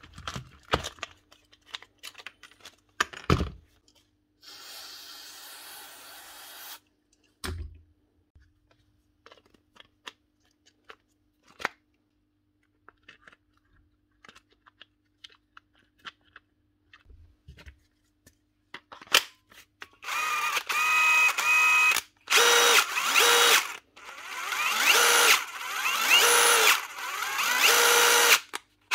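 DeWalt 18V XR brushless impact driver run in several short trigger pulls, its motor whine rising and falling with the variable-speed trigger: a test run after a switch replacement. Before it come small clicks and knocks of the tool being handled and reassembled, and a brief steady hiss.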